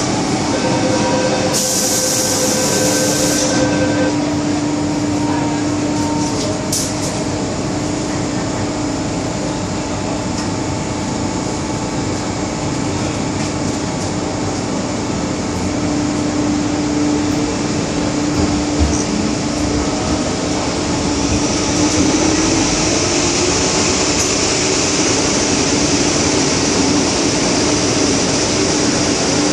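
MTR M-Train subway car heard from inside: a short run of electronic door-closing tones about two seconds in, then the train pulling away and running through the tunnel with a steady motor hum and rail noise, the hiss growing louder in the second half.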